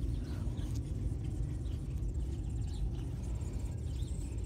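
Outdoor ambience: a low rumble of wind on the microphone, with faint birds chirping and a high, fine insect trill that starts about three seconds in.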